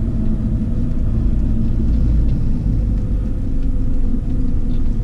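Car engine running with a steady low rumble as the car drives slowly in up a driveway.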